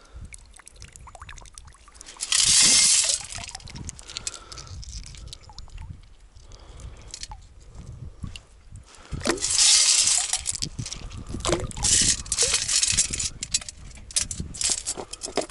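Water sloshing and pouring out of a perforated stainless-steel sand scoop as it is shaken in a shallow stream to sift mud from pebbles, in two long bursts about two seconds in and again near ten seconds. Shorter splashes and the clicks of wet pebbles in the metal scoop follow near the end.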